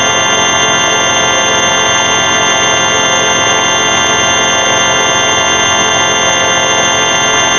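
A loud, steady electronic drone of many held pitches stacked together, like a sustained organ chord or buzzer: logo audio digitally processed into a frozen tone.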